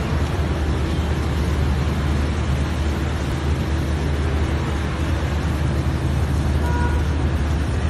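Steady, low engine rumble of heavy machinery running at a constant speed, with no let-up or change in pitch.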